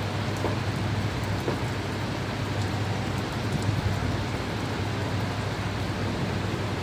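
Steady rain falling, with faint scattered drop ticks over a constant low hum.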